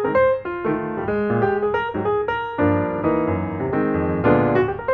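Background piano music: a melody of quick single notes over chords.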